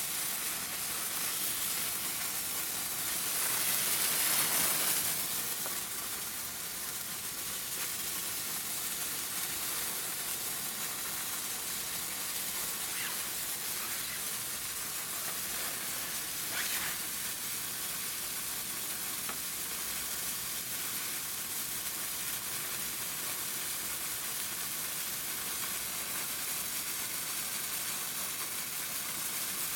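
Two Phantom Fireworks Neon sparklers burning in the hand with a steady hissing fizz, a little louder for a couple of seconds near the start, with a few faint crackles of sparks.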